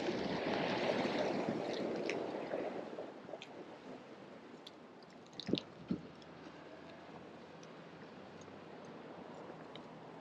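Rustling crackle of ironwood blossoms and hands brushing dry plants close to the microphone as the blossoms are dropped into a glass jar, loudest at first and fading after about three seconds. Two short knocks about five and a half and six seconds in.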